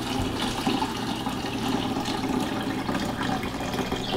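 Juice pouring in a steady stream from a plastic bowl of fire-roasted tomatoes into a kitchen sink, draining the excess liquid off the tomatoes.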